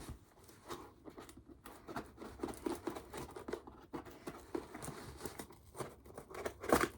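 Hands handling and opening a shipping package: scattered small taps, scrapes and rustling of cardboard and packing material, with a louder handling noise near the end.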